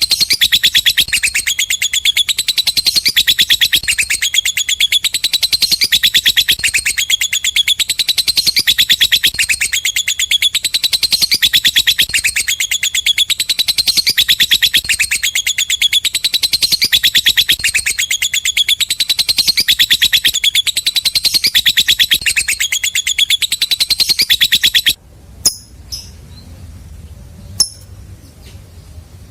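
Lovebird's long "ngekek" song: a loud, very rapid, high chattering trill held without a break, which cuts off suddenly near the end, followed by a few short faint chirps.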